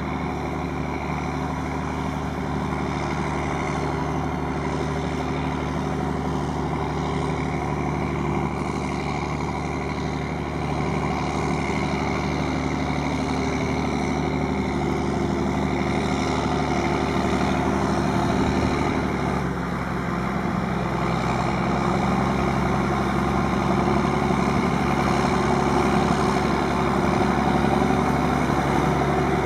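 Heavy diesel engine of harvest machinery running steadily, its note shifting about two-thirds of the way through.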